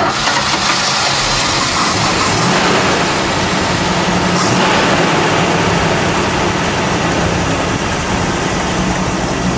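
1970 Plymouth 'Cuda AAR's 340 cubic-inch V8 running at idle with its side-exit exhaust, just after being started. The level stays steady.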